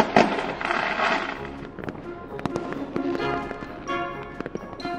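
Cartoon magic sparkle sound effect: a run of crackles and pops over light background music.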